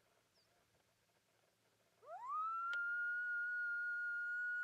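About two seconds of near silence, then one long cry on a diaphragm predator call. It swoops up sharply and is then held steady at a high pitch, a distress cry blown to call in coyotes.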